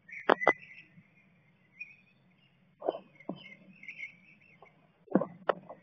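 Blue tit moving about in its nest cup inside a wooden nest box: sharp knocks and scratchy rustles of the dry nest material, two loud knocks right at the start and a quick cluster near the end.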